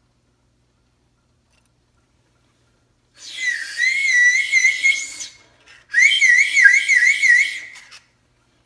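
3D-printed whistle blown twice, about three seconds in and again near six seconds, each blast lasting about two seconds. Its shrill tone warbles up and down, faster on the second blast.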